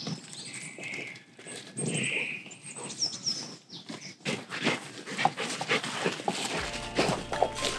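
A dog's short, irregular sounds, with birds chirping. Background music comes in near the end.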